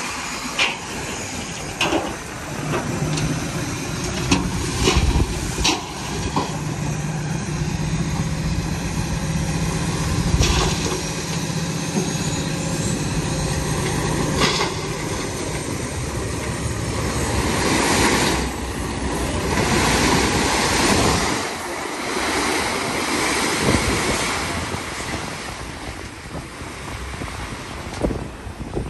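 Heavy dump truck running, with a steady low engine hum, scattered knocks and clanks, and several rushes of noise in the second half.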